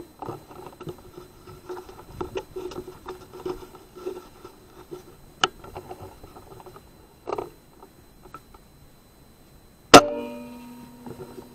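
A single air rifle shot about ten seconds in, a sharp crack followed by a ringing that fades over about a second. Before it, scattered small clicks and rustling.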